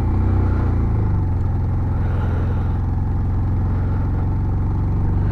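Motorcycle engine running steadily as the bike climbs a hill road.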